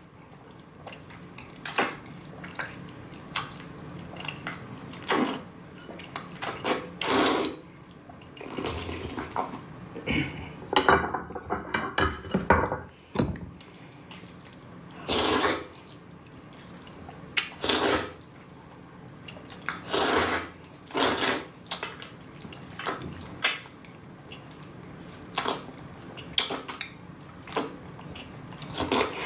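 Noodles being slurped up close, in repeated loud sucking slurps a second or two apart, swallowed without chewing.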